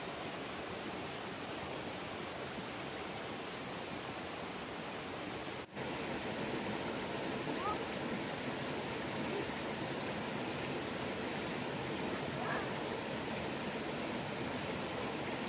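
Steady rush of flowing stream water. It drops out for an instant about five and a half seconds in and comes back slightly louder.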